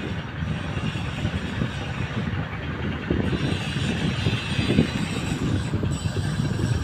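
Fishing boat's diesel engine running under way, a low, uneven chugging, as it drives a newly fitted propeller on trial.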